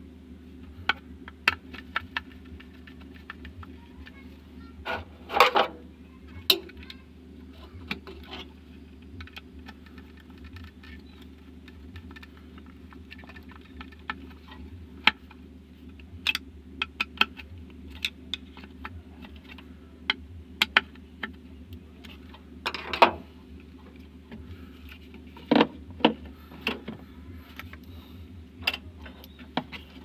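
Metal tools clicking, tapping and scraping against a snail-type car horn and its mounting bracket as the horn is fastened back in place, over a steady low hum. Louder scrapes come about five seconds in and again a little past twenty seconds.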